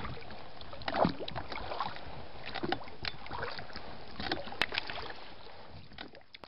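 Water sloshing and splashing irregularly around a small boat on a lake, fading out near the end.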